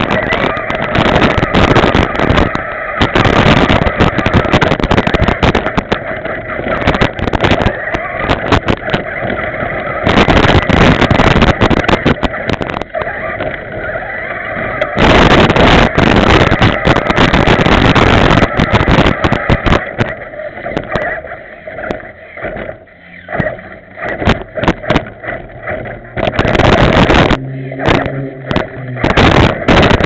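Remote-control 4x4 truck's motor and gears whining loudly as it drives, picked up by a camera mounted on the truck itself, with constant rattling and knocks as it jolts over boards and bumpy ground. In the last third the sound comes and goes as the truck slows and speeds up.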